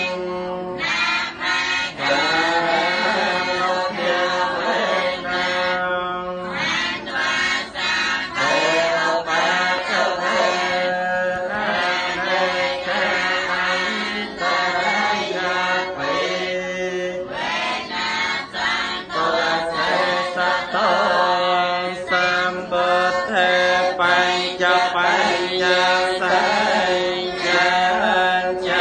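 Buddhist chanting: a group of voices reciting together in a continuous, even chant over a steady low tone.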